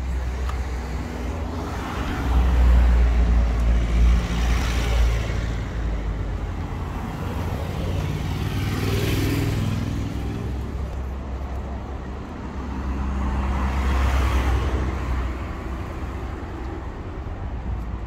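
Street traffic: cars passing by on the road one after another, each swelling and fading, about three passes, over a steady low rumble.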